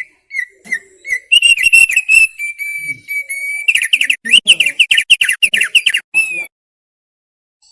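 Thick-billed heleia (opior paruh tebal) singing: a few short whistled notes, a held steady whistle, then a fast run of about a dozen sharp whistled notes that stops about six and a half seconds in.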